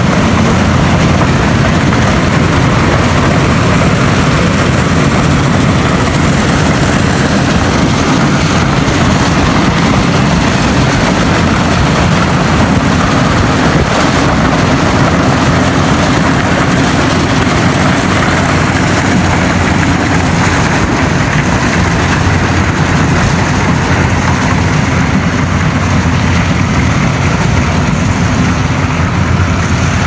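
Corn harvester running steadily, a loud continuous engine drone as it works through dry corn stalks, easing slightly near the end.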